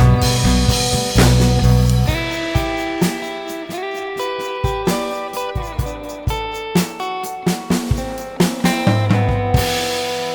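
Background music: plucked guitar over a drum kit with a steady beat.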